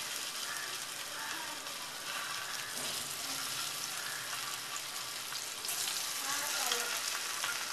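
Steamed dill-and-gram-flour squares shallow-frying in hot oil on a flat pan, sizzling steadily as more pieces are laid in. The sizzle swells a little about six seconds in.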